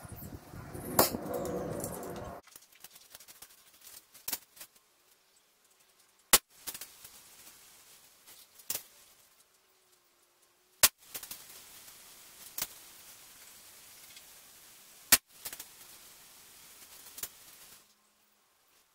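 Spring-piston air rifle shots at paper targets: a series of sharp cracks every two seconds or so, some louder than others, as pellets are fired and strike the targets.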